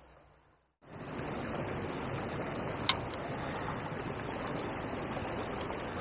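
Steady rush of fast-flowing river water, starting abruptly about a second in, with a single sharp click about three seconds in.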